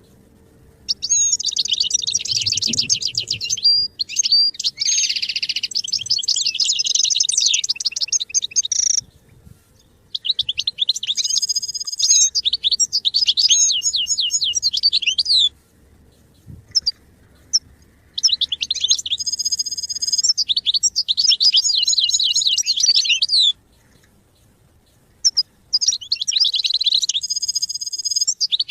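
European goldfinch singing: fast twittering and trilled phrases in four long bouts of several seconds each, with short pauses between.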